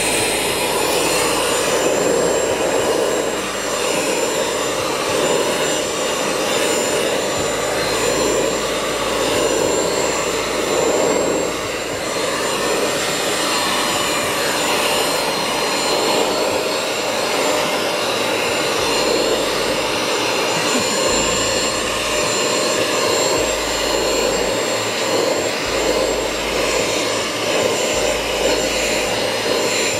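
Vacuum cleaner running steadily with a high whine, its crevice nozzle being drawn through a shedding cat's fur.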